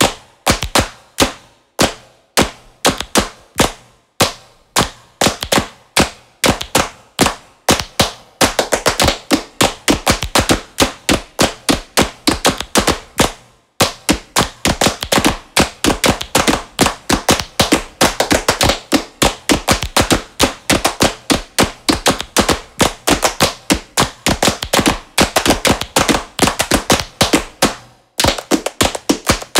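A long, fast run of sharp percussive hits, like claps or taps, loosely rhythmic and growing denser about a third of the way in, with short breaks along the way.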